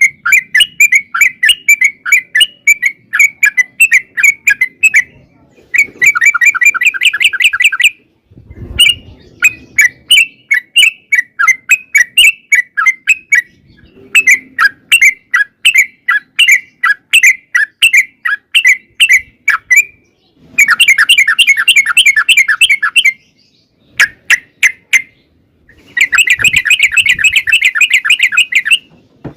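Yellow-vented bulbul (trucukan) singing long, fast runs of chirping notes, several a second, in phrases of a few seconds with short breaks between them. Some phrases are denser and louder.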